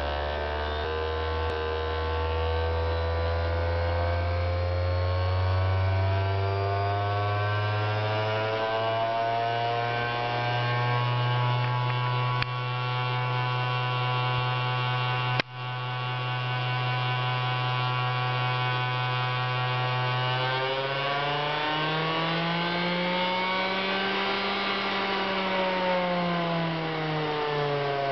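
Whine of a variable-speed electric motor spinning a wheel as its speed is turned up: the pitch climbs over the first several seconds, holds steady, then rises and falls again near the end as the speed is swung up and down. A sharp click about halfway through.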